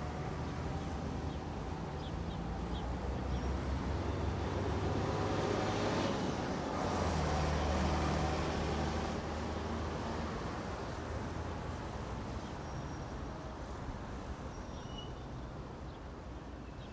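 Bus terminal ambience: a bus engine's low rumble swells to its loudest about halfway through, as if a bus moves past, then fades back, with a few faint short high squeaks.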